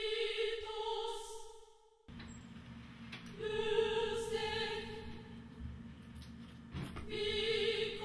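Operatic singing as background music: a voice holding long notes of a couple of seconds each, with pauses between them.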